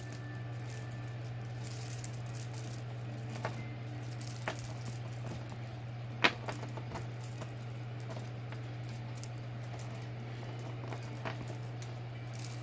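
Costume jewelry pieces clicking and rattling lightly as they are handled and sorted, with one sharper click about six seconds in, over a steady low hum.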